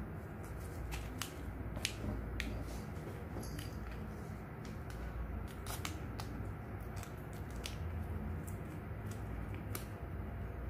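Plastic cat-treat stick pack crinkling and crackling in the hands as it is handled and torn open, in sharp irregular clicks over a steady low background rumble.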